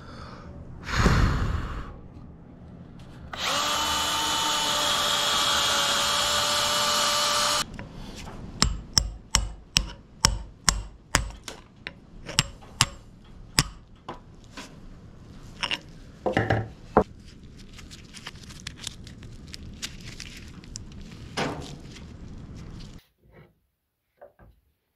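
Electric drill boring into the old wooden handle wedged in a sledgehammer head's eye, running for about four seconds. It is followed by a fast run of about fifteen hammer blows, roughly three a second, on a steel punch driving the wood out of the eye, then a few scattered knocks.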